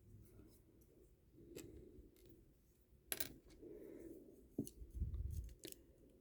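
Small plastic Lego pieces clicking and tapping as they are handled and pressed together: a few sharp separate clicks, the loudest about three seconds in.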